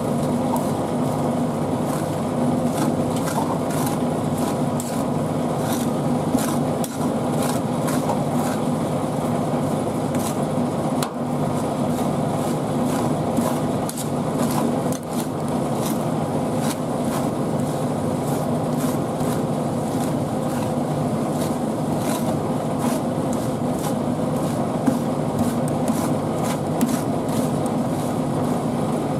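Metal spatulas chopping and scraping a tomato and cream mixture on a chilled metal pan: rapid clicks and taps, busiest in the first half, over a steady low hum.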